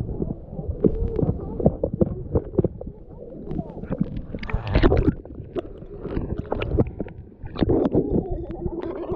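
Water sloshing and bubbling heard through a camera held underwater: muffled, with nothing bright above the middle range, and many short dull knocks.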